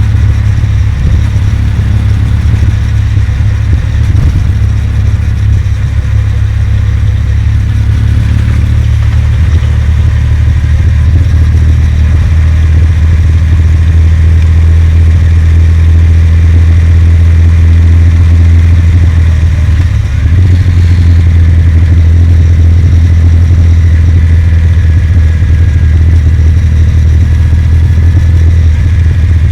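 Kawasaki W800's air-cooled parallel-twin engine running steadily under way, with the rider cruising through the gears. The engine note holds level apart from a brief dip about two-thirds of the way through.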